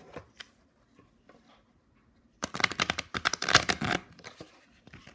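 A deck of coated playing cards riffle-shuffled on a table: a fast run of card flicks lasting about a second and a half, starting about halfway through, with a few faint handling clicks before and after.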